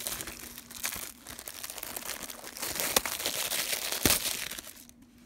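Thin plastic shrink wrap crinkling as it is pulled off a disc case and crumpled, with a couple of sharp crackles; it stops about a second before the end.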